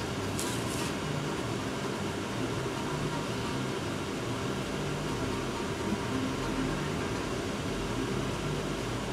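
Steady mechanical hum and hiss of room noise, like a fan or air-conditioning unit running, with a brief soft hiss under a second in.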